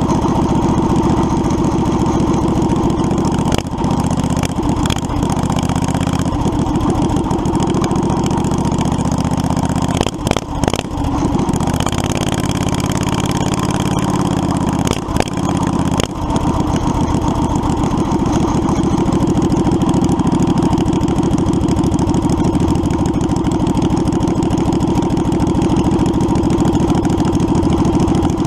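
A go-kart's 670cc Predator V-twin engine running steadily under way. Its sound drops briefly with short knocks about ten to eleven seconds in and again around fifteen seconds in.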